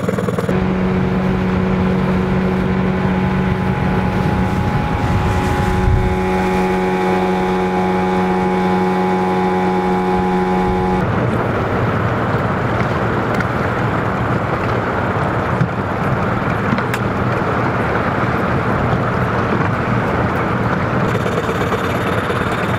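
A boat motor running at a steady pitch for about the first half, then a steady rushing noise of moving water and wind takes over.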